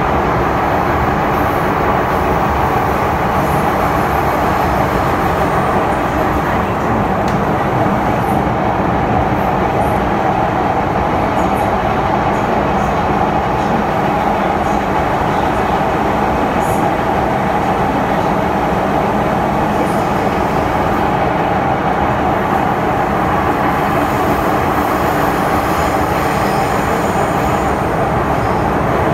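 MTR M-Train electric multiple unit running along the track, heard from inside the passenger car: a steady, unbroken rumble of wheels on rail with a constant hum.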